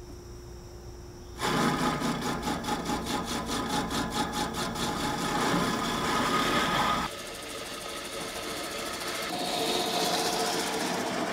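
Swardman Electra battery-powered reel mower starting up: its electric motor and cutting reel come on suddenly about a second and a half in and run with a fast, even whir. About seven seconds in it drops to a quieter steady running sound as the mower is pushed along cutting grass.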